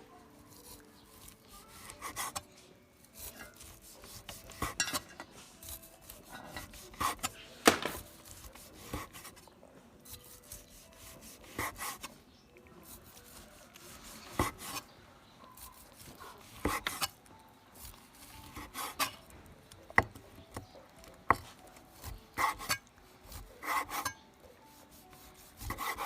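Kitchen knife working through cooked cured pork on a wooden chopping board: irregular knocks of the blade on the board mixed with short scraping strokes, one knock louder about 8 seconds in.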